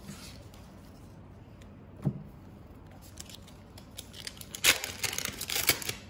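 Foil booster pack of trading cards being opened: a soft knock about two seconds in, then loud crinkling and tearing of the foil wrapper near the end.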